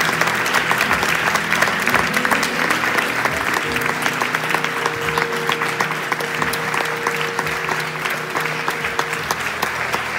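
Audience applauding, a dense steady patter of many hands, with an acoustic guitar still playing held notes beneath it.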